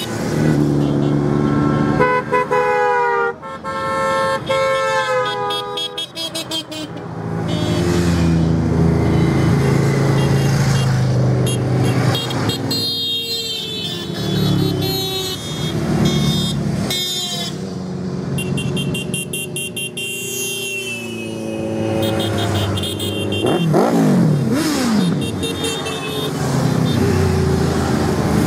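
A stream of motorcycles riding past one after another, engines running, with horns sounded several times and an engine revved up and down briefly near the middle.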